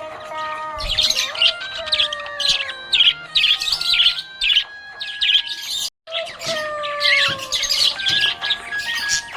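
Budgerigar chirping in quick, dense clusters over background music with held melody notes that step in pitch. The sound drops out briefly about six seconds in.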